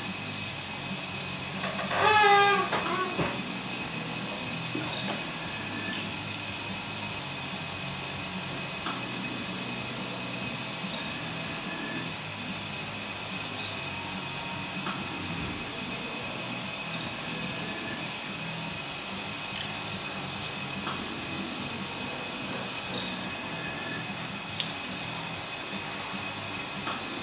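Steady operating-theatre background hiss with faint high-pitched steady tones. A short vocal sound comes about two seconds in, and there are a few light clicks later on.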